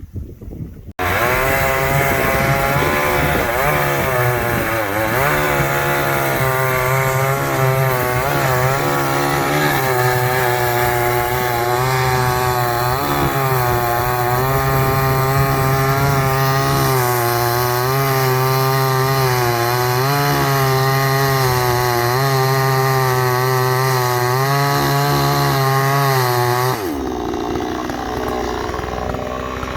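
Two-stroke chainsaw cutting wood at high revs, its pitch wavering up and down as the chain loads and frees in the cut. About 27 s in it drops back to a quieter idle.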